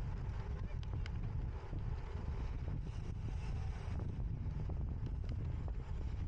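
Wind buffeting the microphone, with a steady low rumble and a few sharp clicks.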